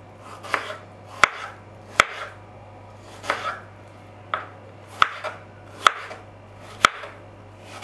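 Kitchen knife cutting peeled peaches into cubes on a wooden cutting board: sharp taps of the blade on the board, about eight of them, irregular, roughly one a second.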